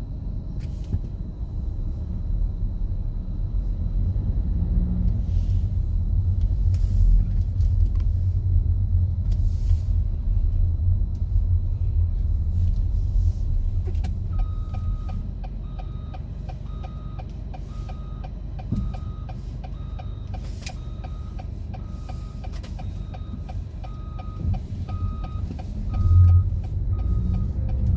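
A city snow-clearing machine's engine running steadily; about halfway through, its backup alarm starts beeping, one even beep about every second.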